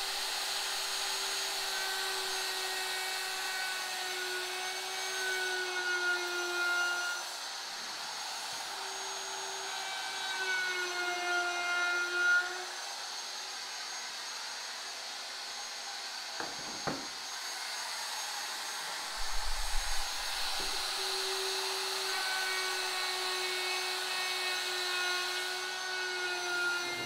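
Handheld electric wood router running at speed, cutting a roundover along the edge of a wooden strip; its steady whine sags in pitch whenever the bit bites into the wood. It runs in three stretches with short stops between them, and during the longer mid-way stop there is a sharp knock followed by a dull thump.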